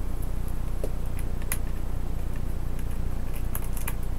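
Steady low electrical hum on the recording, with a few light sharp clicks as hands handle the laptop's plastic case and small screws: once about a second and a half in, and twice close together near the end.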